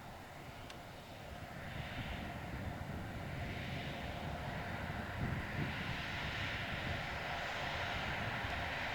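A train approaching along the line, its rumble and rushing noise growing steadily louder.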